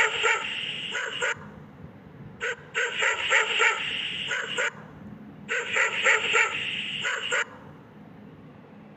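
Dog barking in three quick runs of rapid barks, each a second or two long, with short pauses between them. It falls quiet for the last second and a half.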